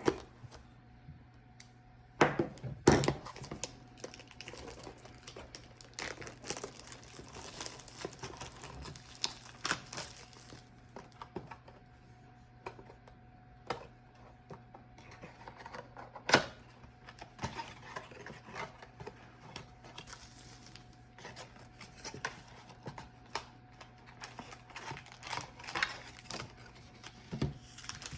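Crinkling and tearing of a trading-card pack wrapper and card box, then the cards being handled and flipped, with scattered clicks and taps; the loudest rips come a couple of seconds in and again about halfway through. A faint steady hum runs underneath.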